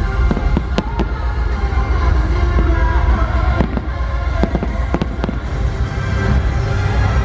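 Fireworks going off: several sharp bangs and pops scattered through, over loud show music and a deep low rumble.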